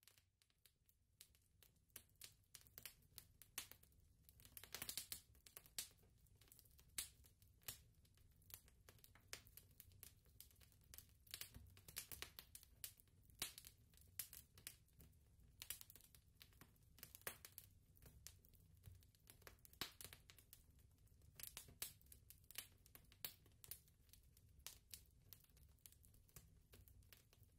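Faint, irregular clicking and crinkling over a low, steady hum.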